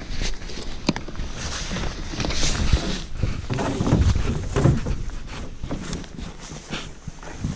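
Close handling noise: a nylon rain jacket and backpack straps rustling against the microphone, with irregular clicks and low thumps from the camera being moved.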